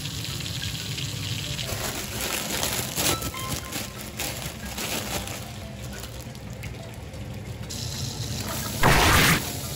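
Butter sizzling and foaming in a hot frying pan, a steady hiss with light crackling. Near the end a loud, brief rush of noise as the bean sprouts and Chinese chives are tipped into the pan.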